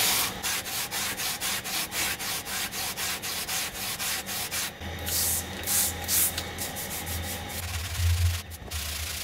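Hand sanding: a compressor crankcase part rubbed back and forth on sandpaper taped to a flat aluminum plate, lapping its JB Weld-coated top flat, in quick, even rasping strokes. A low hum joins about five seconds in.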